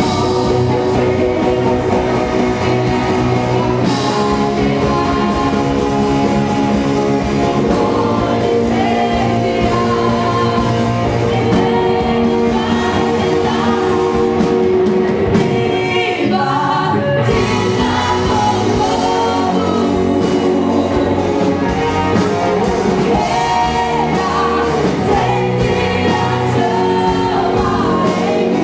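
Christian worship music: voices singing over a band, loud and continuous.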